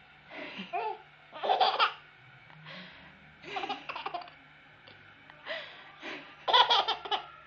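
Baby laughing in five short bursts of pulsing laughter, the loudest about a second and a half in and again near the end.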